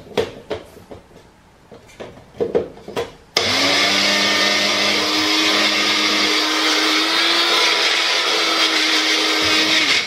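Small personal blender grinding coffee beans. After a few knocks as the cup is handled on its base, the motor starts suddenly about a third of the way in and runs steadily with a whine that rises slightly in pitch, then stops near the end.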